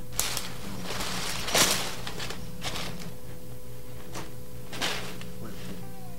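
A steady low hum with a brief rustling swish about a second and a half in and a few faint knocks.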